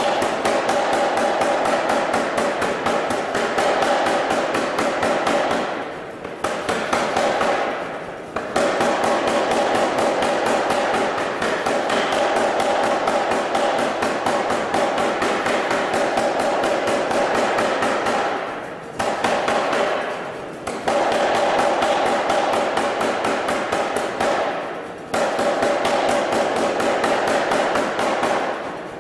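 Anyang self-contained air power hammer running and striking a red-hot bar in a rapid, continuous run of blows over a steady machine hum, pausing briefly a few times as the bar is repositioned.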